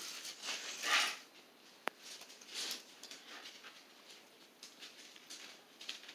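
A small plastic toy capsule and its wrapping handled and pried open by hand: irregular crinkling and rustling, with one sharp plastic click about two seconds in.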